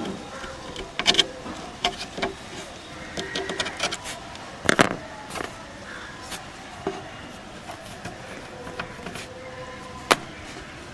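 Irregular clicks and knocks of hands handling objects on a workbench: a cluster of taps in the first half, the loudest knock about five seconds in, and one sharp click near the end.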